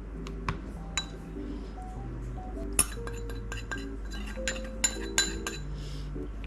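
Dishes and cutlery clinking and tapping in a kitchen, about half a dozen sharp clinks with a brief ring, over soft background music.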